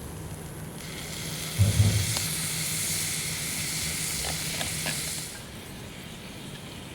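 Beef searing in a small cast-iron skillet over a campfire, a steady sizzle with a low knock about a second and a half in. The sizzle cuts off about five seconds in.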